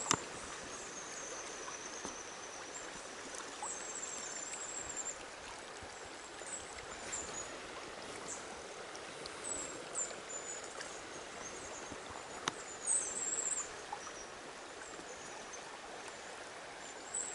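Steady rush of a river's current, with short high chirps scattered over it and a few small clicks.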